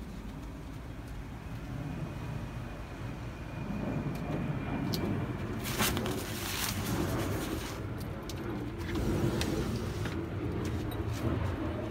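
Low, steady rumble of passing motor-vehicle traffic that grows louder about four seconds in, with scattered clicks and a short rustle about six seconds in from the phone being handled.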